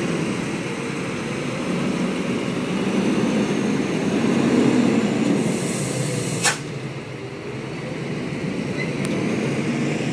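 Diesel engine of a fully loaded Hino 500 dump truck running as the truck creeps down a steep, narrow dirt slope, swelling about four to five seconds in and easing off as it moves away. A short hiss ends in a sharp click midway through.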